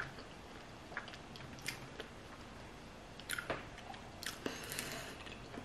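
A person chewing a mouthful of garlic bread, with a few short, crisp crunches now and then.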